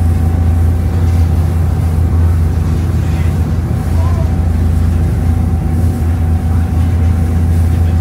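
Harbour ferry's engines droning steadily: a strong, even low hum with a thin steady whine above it, under a light rush of water and air on the open deck.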